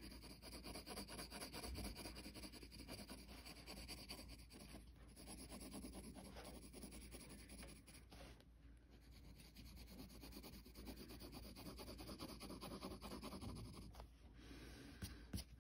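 Faint scratching of a pencil on sketchbook paper, many short strokes as lines and spines are drawn.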